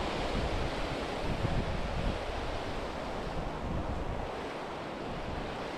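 Wind buffeting the microphone over a steady rushing hiss; the low buffeting eases after about three seconds.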